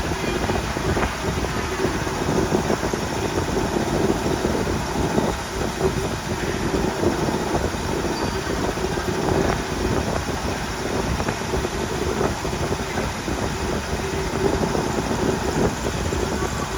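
Milling machine running steadily with a constant hum.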